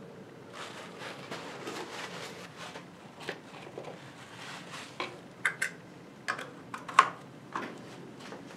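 Handling noises as a plastic oil funnel is pulled out of a Ford Model T's transmission filler: a soft rustle, then a few light, sharp clicks and knocks, the sharpest about seven seconds in.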